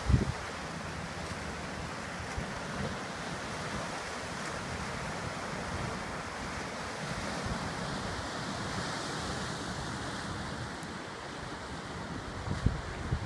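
Ocean surf washing over coastal rocks, a steady rush. Wind buffets the microphone in low gusts at the very start and near the end.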